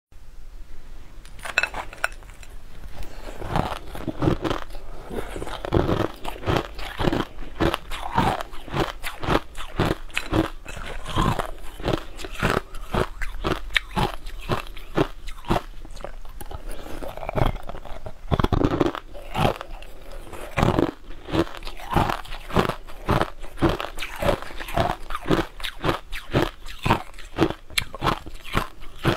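A person biting and chewing crushed sweetened ice, a dense run of close, crisp crunches that starts about a second and a half in.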